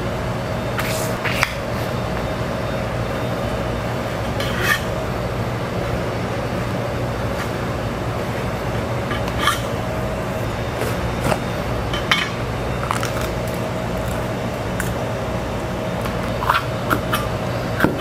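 A steady mechanical hum, with scattered light clicks and knocks of kitchen utensils and dishes being handled during vegetable prep, about eight in all.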